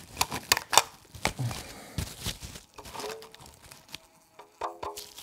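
Plastic cling film crinkling and crackling as it is stretched tight over a drinking glass. A bee-like insect trapped under the film buzzes briefly about three seconds in and again near the end, the film acting as a drum membrane.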